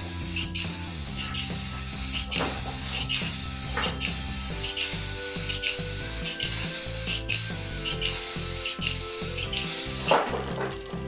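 Aerosol can of matte clear coat spraying: a strong hiss in a string of passes with many brief breaks, stopping about ten seconds in. Background music with steady tones plays underneath.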